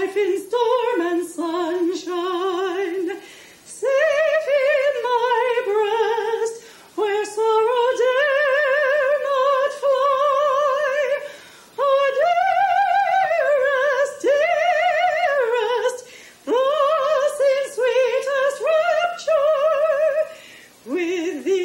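A woman singing solo in a classical, operatic style, with wide vibrato on long held notes and phrases broken by short breaths every few seconds.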